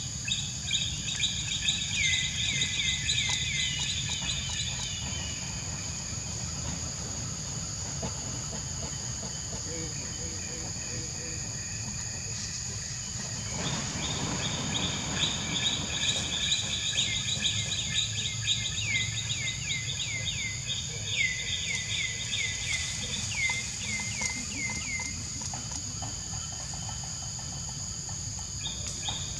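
Outdoor forest ambience: a steady high-pitched insect drone, with a bird singing long runs of quick, repeated falling chirps at the start and again through the second half. A short rustle-like noise about halfway through.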